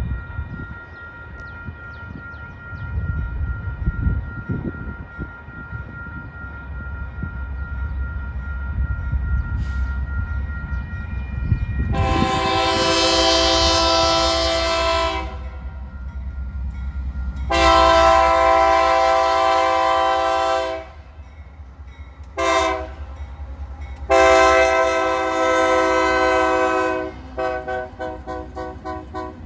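A BNSF diesel locomotive approaches with a low engine rumble. About twelve seconds in, its multi-chime air horn sounds the grade-crossing pattern of long, long, short, long. Near the end it gives a quick run of about seven short toots, about three a second.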